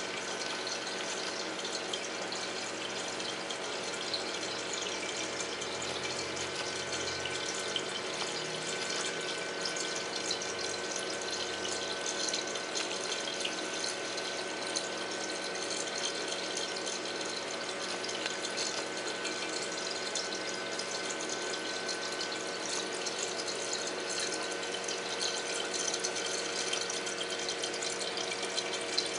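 Saltwater reef aquarium's running water and pump: a steady rush of moving water with a constant hum and a thin whine over it.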